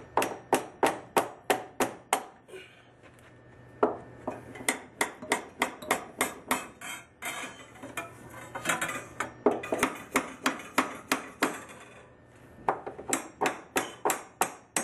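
Hammer blows on a copper pipe brace with flattened ends, driving it tight between floor joists. The blows are quick and sharp with a metallic edge, about four or five a second, in four runs with short pauses between.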